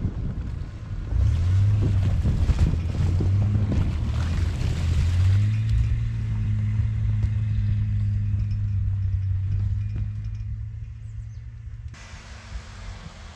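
Ford Explorer SUV engine pulling hard as it drives through deep snow and into a shallow, iced-over river ford, with slush and water splashing under the tyres. The engine note climbs, then holds steady as the SUV crosses, and fades as it moves away toward the far bank.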